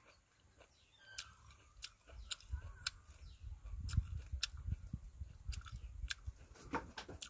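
A person chewing a mouthful of juicy Dekopon mandarin close to the microphone: a string of sharp, wet mouth clicks and smacks over soft low chewing thumps.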